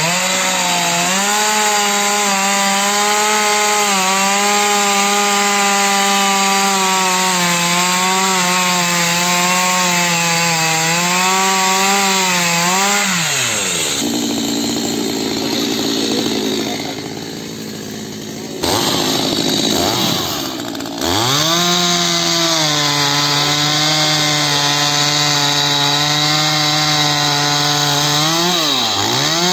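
Two-stroke petrol chainsaw running at full throttle through a tree trunk, its pitch dipping and recovering as the chain loads in the wood. About 13 seconds in the engine drops back, and after a quieter stretch broken by abrupt cuts, a Stihl chainsaw revs up and runs at full throttle cutting a fallen log.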